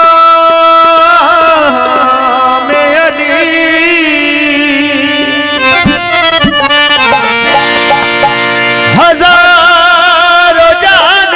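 Qaseeda music: a harmonium holds steady chords while a male singer draws out long, wavering, ornamented notes without clear words. Tabla plays underneath.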